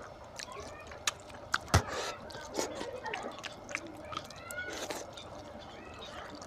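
Wet, close-up eating sounds: chewing and lip-smacking on a mouthful of mutton curry and rice, mixed with squelches and sharp clicks from fingers kneading the oily curry and rice on a paper plate. The loudest is a sharp click a little under two seconds in.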